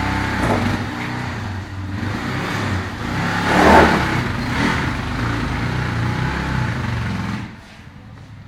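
Motorcycle engine running and revving, loudest about three and a half seconds in. The engine sound drops away suddenly about seven and a half seconds in.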